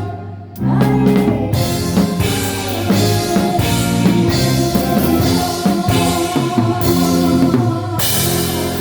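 Live band with drum kit playing a song in rehearsal. The band stops for about half a second near the start, then comes back in together and plays on steadily.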